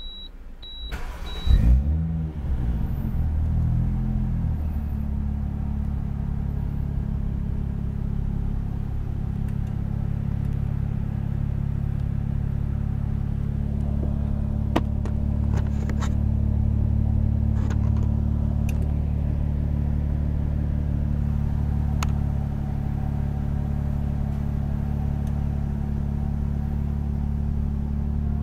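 Toyota Soarer 2.5GT-T's 1JZ-GTE twin-turbo inline-six starting up, heard from inside the cabin. A few short beeps come first, then the engine catches about a second and a half in, flares up and falls back over the next few seconds, and settles into a steady idle.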